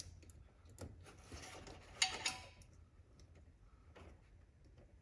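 Small clicks and rubbing as blue insulated crimp connectors and thin wires are handled and pushed together by hand, with a sharper double plastic click about two seconds in.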